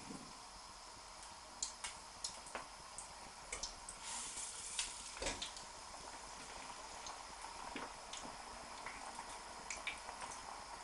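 Potato chips deep-frying in hot vegetable oil in a chip pan, just after being lowered in: a steady sizzle with scattered sharp crackles and pops, busiest about four to five seconds in.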